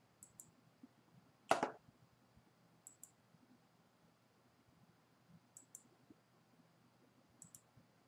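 Faint computer mouse clicks: four quick pairs of light, sharp clicks a couple of seconds apart, with one louder knock about a second and a half in.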